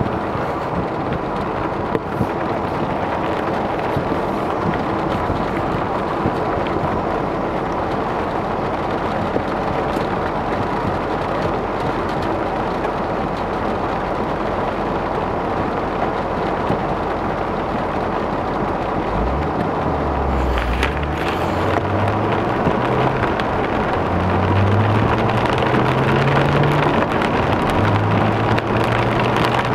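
Heavy rain beating steadily on a car's roof and windshield, heard from inside the cabin. About two-thirds of the way through, the car's engine pulls away, its low note rising in steps as it accelerates.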